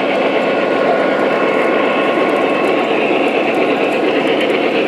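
Model trains running on a layout's track: a steady rolling rumble of motors and wheels, with faint steady whine tones.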